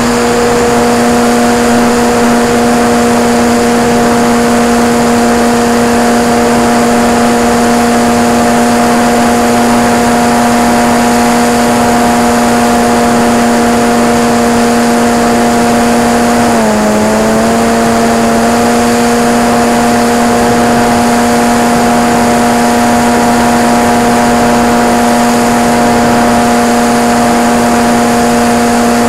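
Multiplex Cularis electric motor glider's brushless motor and propeller running at steady power in a climb, a steady whine heard from on board over rushing air. A little past halfway the pitch dips briefly, then settles back to the same note.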